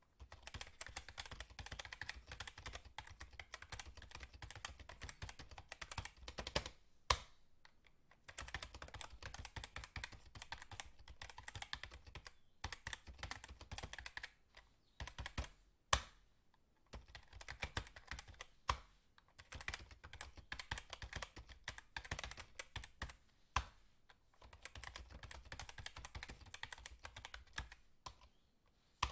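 Fast typing on a computer keyboard: rapid key clicks in runs of several seconds, broken by short pauses, with a few single keystrokes louder than the rest.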